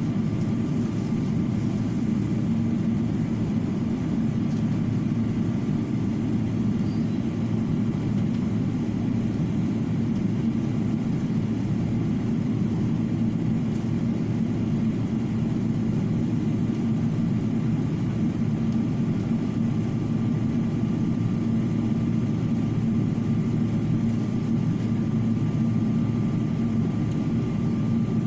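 Steady, unchanging engine rumble with a faint steady whine above it, holding level throughout without any pass-by swell.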